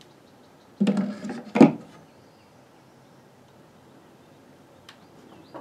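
Iron block plane slid down into a screwed-together pine holster in a tool chest: a short scrape about a second in, ending in a solid knock as the plane seats, then a faint click.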